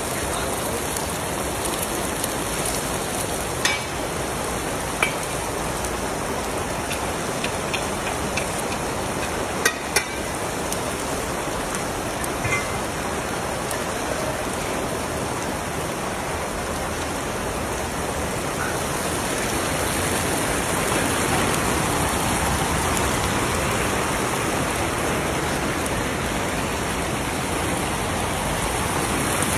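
A large batch of carrots frying in oil in a huge plov cauldron, a steady dense sizzle. A few sharp knocks come in the first third, and the sizzle grows a little louder about two-thirds of the way through.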